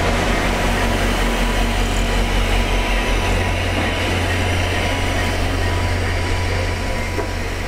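Stainless-steel passenger cars of a train rolling slowly by, with a steady rumble of wheels on rail and a low, even hum.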